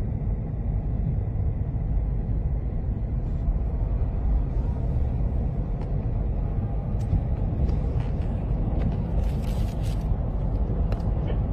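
Strong lakeshore wind buffeting the microphone: a steady low rumble, with a few clicks and a brief hiss about nine seconds in.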